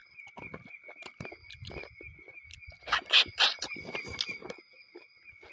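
Close-mic chewing and lip-smacking of a person eating rice and pork curry by hand, with a cluster of louder smacks about three seconds in. Behind it runs a steady, pulsing insect chirp.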